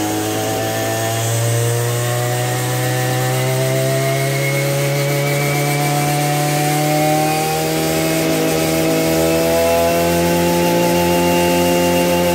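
Maruyama MB3030 backpack brush cutter's 30cc engine held at full throttle. It runs steadily at high revs, its pitch creeping slightly higher over the first few seconds.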